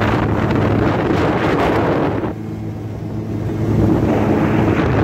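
Boat motor running steadily as the boat moves along, with wind and water rushing over the microphone. The rushing noise drops about two seconds in and builds again near the end.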